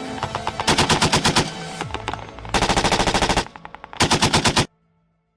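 Machine-gun fire in three rapid bursts, the last one cut off suddenly about a second before the end.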